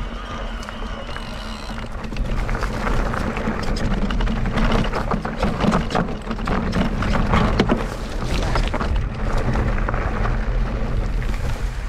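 Mondraker Crafty Carbon RR mountain bike riding a dirt trail: tyre and trail noise with constant rattles and knocks from the bike, and wind on the camera mic. It gets louder about two seconds in.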